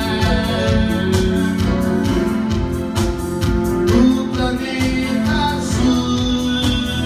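A live band playing through a stage PA during a sound check: drums, bass and guitar or keyboard, with a voice singing.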